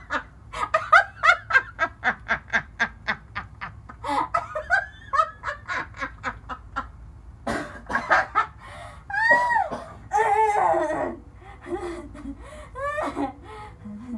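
Person laughing hard in a long fit: a quick run of short ha-ha bursts, about five a second, then after a brief pause further bursts and long, high squealing laughs that rise and fall.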